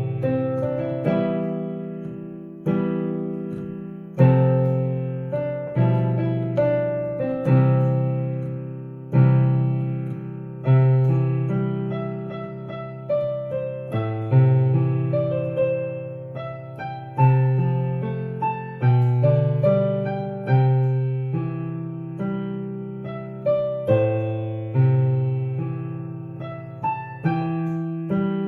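Piano playing a slow series of block chords, each struck together and left to ring and fade before the next, about one every one and a half to two seconds.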